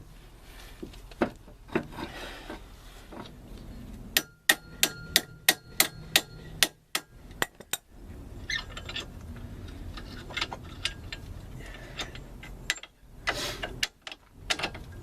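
Metal knocks, clanks and scraping as a new front strut assembly is worked by hand into place on the van's suspension, with a quick run of about a dozen sharp, ringing metal taps about four seconds in.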